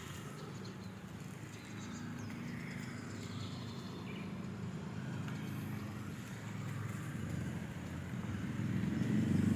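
A passing road vehicle's engine rumbling low and steady, growing louder as it approaches, most sharply near the end.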